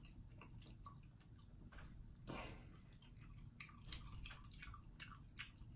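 Faint chewing of food close to the microphone: irregular soft wet clicks and smacks from the mouth, with a short breathy rustle about two seconds in.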